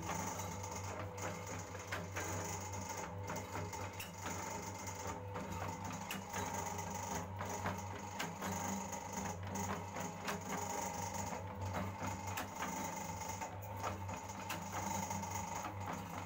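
Camphor tablet making machine running, a steady mechanical hum with a regular cycle repeating about every two seconds as it presses out tablets.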